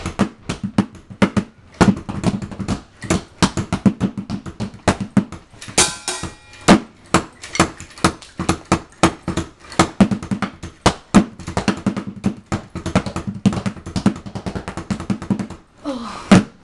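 Drum kit played in a fast, busy pattern, sticks hitting the drums several times a second, with a cymbal crash about six seconds in.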